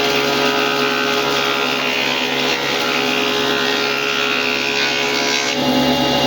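A motor running steadily with a continuous droning hum, its tone shifting slightly about five and a half seconds in.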